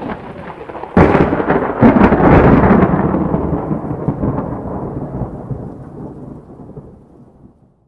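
A thunderclap: a faint rumble, a sharp crack about a second in with a few more cracks just after, then a long rolling rumble that fades away over several seconds.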